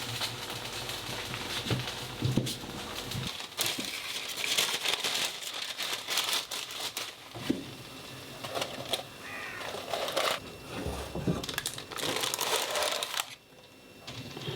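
Crinkling and crackling handling noises with scattered light clicks. A low steady hum underneath stops about three seconds in.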